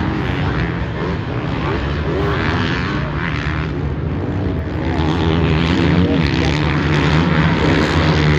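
Several 450-class motocross bikes racing around the track at a distance, their engines revving up and down as the riders accelerate, blending into a steady drone that gets louder about five seconds in.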